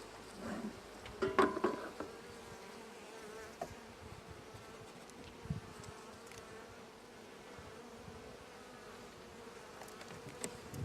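Honey bees buzzing steadily around an open hive, with a short louder clatter about a second and a half in.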